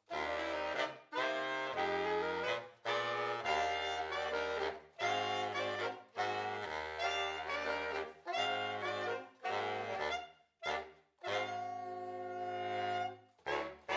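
Saxophone ensemble playing jazz chords in short phrases over a low bass line, ending on a long held chord and a short final note.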